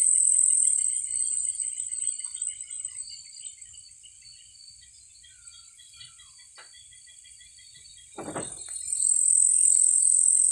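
Chorus of night insects in the forest: a loud, steady, high-pitched drone that fades away over the first few seconds and swells back about nine seconds in, with softer chirping throughout. A short burst of noise about eight seconds in.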